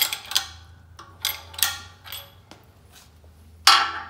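Metallic clanks and clinks from pumping a 12-ton bottle-jack hydraulic press with a screwdriver standing in for its broken handle, driving the louver punch fully down to flatten the louver. About six separate clanks, with the loudest near the end, over a faint steady hum.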